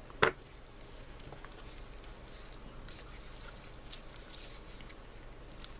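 Small parts and tools being handled on a workbench: one sharp click about a quarter second in, then faint scattered taps and ticks, over a low steady hum.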